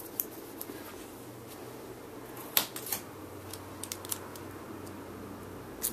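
Clear adhesive tape being handled, torn and pressed down onto the back of a wrestling title belt: a few short sharp crackles and clicks, most of them in the middle, over a faint steady hum.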